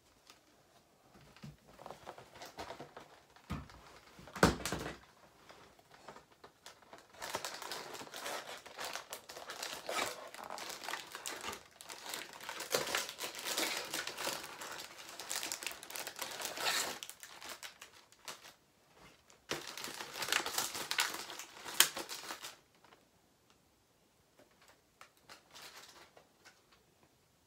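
Packaging of a Whippet cookie box being torn open and crinkled by hand, in several bursts with the longest stretch in the middle. There are a couple of sharper knocks, one of them heavier and deeper.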